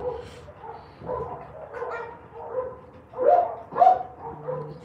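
Dogs barking, with two louder barks a little after three seconds in.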